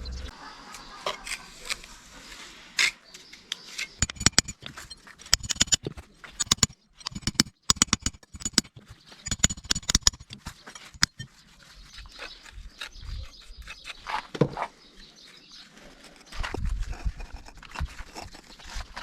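A rapid, irregular run of sharp taps and knocks in the middle of the stretch, some with a short metallic ring, among softer scattered handling sounds.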